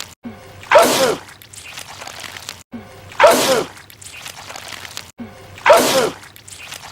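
A man's loud sneeze, the same sneeze repeated three times in an identical loop, about every two and a half seconds.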